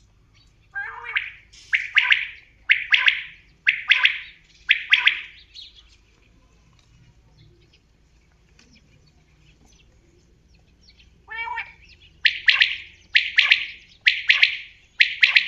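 Gamebird calling in two bouts, each a buzzy lead-in note followed by four harsh, evenly spaced notes about a second apart. The second bout starts about eleven seconds in.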